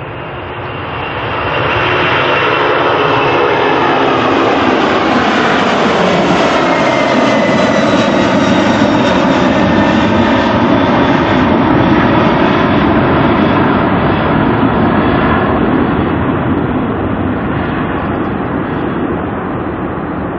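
Airliner passing close by: the engine noise swells over the first two seconds, holds loud with tones that slide down in pitch as it goes past, then eases slightly.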